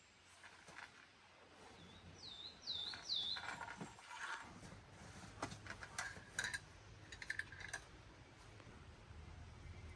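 A bird gives three quick swooping calls about two seconds in, among scattered sharp clicks and knocks.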